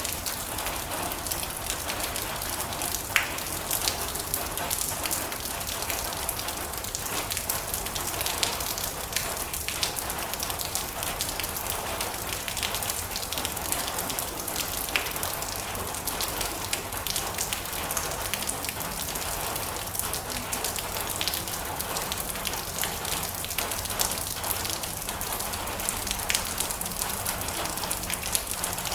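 Steady rain drumming on a metal roof, a dense hiss with many sharp ticks of single drops striking the metal.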